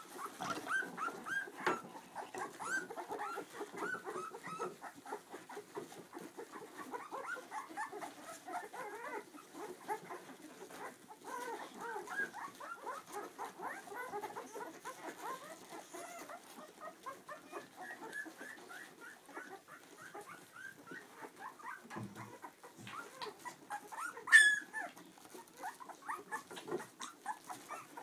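A litter of two-week-old Clumber spaniel puppies squeaking and whimpering continuously while suckling, many small overlapping cries. A single sharp click near the end is the loudest sound.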